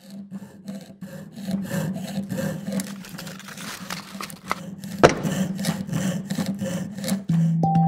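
Jeweller's saw cutting thin metal sheet on a wooden bench pin, with rhythmic rasping strokes about three a second over a low steady hum. There is one sharp click about five seconds in, and music comes in near the end.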